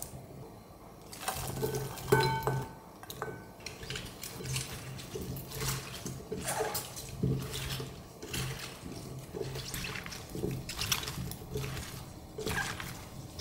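Gloved hands tossing cut cucumber and onion pieces with chili-flake kimchi seasoning in a glass bowl: wet squelching and rustling in repeated strokes.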